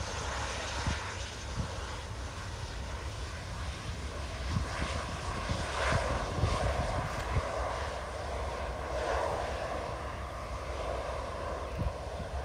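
Business jet's engines running as it rolls along the runway after landing: a steady rushing jet noise that swells for a few seconds in the middle.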